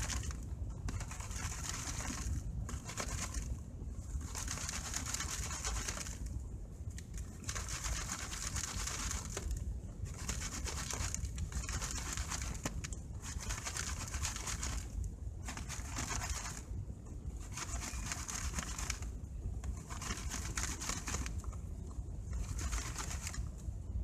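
Gravel and dirt shaken and rubbed by hand in a gold-prospecting sieve with 8 mm holes over a plastic bucket. The stones rasp against the sieve in bursts of about a second with short pauses, over a steady low rumble. This is the first coarse screening: gravel stays on the sieve and the fine concentrate falls into the bucket.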